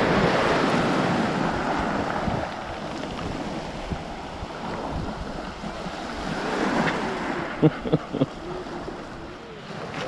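Small sea waves breaking and washing over a pebble shore, swelling at the start and again about seven seconds in. Three brief sharp sounds come close together about eight seconds in.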